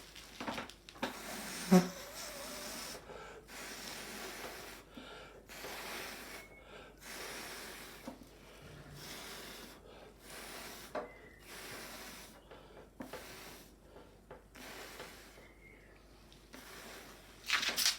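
Repeated puffs of breath blown through a straw to push wet acrylic paint across the board, each blow a breathy hiss lasting up to about a second, with short pauses between them. There is a sharp louder sound about two seconds in and a stronger blow near the end.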